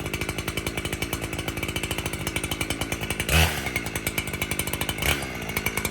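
Chainsaw engine idling with a steady, rapid putter. Two brief sharp noises come through it about three and a half and five seconds in.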